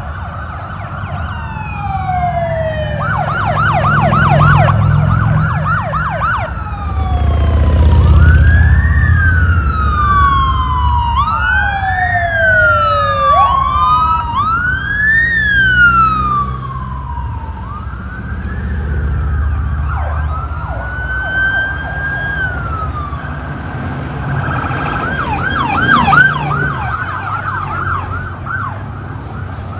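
Police escort sirens of a passing motorcade, several at once, wailing up and down and overlapping. Bursts of fast yelp come a few seconds in and again near the end. Under the sirens, vehicle engines rumble past.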